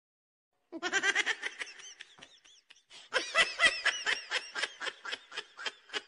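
A person laughing in two bouts of quick, high-pitched giggles. The first starts about a second in and trails off; the second, louder, starts about three seconds in.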